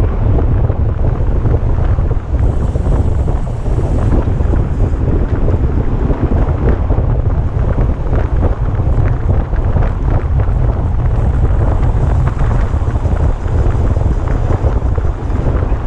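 Heavy wind buffeting the microphone of a racing cyclist's camera at speed: a loud, steady low rumble with rushing air noise over it.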